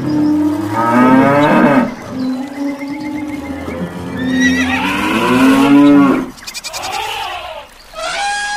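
Animal call sound effects with music beneath: long cries that bend up and down in pitch, one about a second in and a louder one from about four to six seconds, then quieter, choppier calls near the end.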